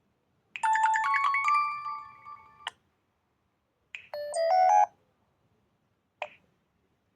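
Alcatel Pixi 3 (4) phone's built-in alert tones playing through its speaker: a short chime of several notes that ends in a click, then about a second later a second, shorter chime, and a single click near the end.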